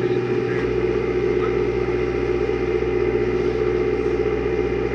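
Sailing catamaran's engine running steadily at constant speed, an even hum that does not change.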